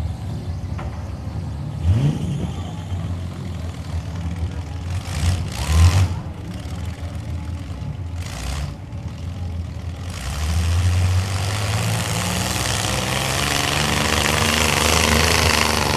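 Engines of demolition-derby trucks and a skid-steer loader running, with short revs about two and six seconds in. From about ten seconds a louder, rushing engine noise builds and holds to the end.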